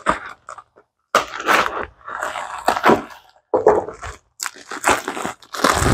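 A mailing envelope being slit with a small blade and torn open by hand, crinkling and tearing in irregular bursts.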